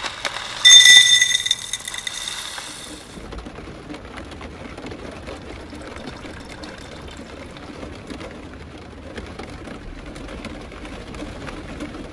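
Water running from a water jug's spigot into an enamelled pot of dry bean soup mix. About a second in there is a loud, high ringing tone for roughly two seconds, then a steady pouring splash.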